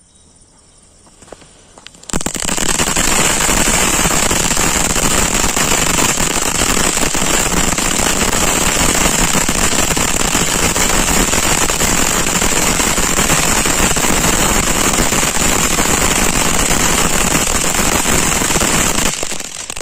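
A burning fuse, faint, then about two seconds in a Rocktail Mega Tin crackling fountain firework erupts into a steady rushing spray of sparks packed with dense rapid crackling, which runs on evenly and dies away shortly before the end.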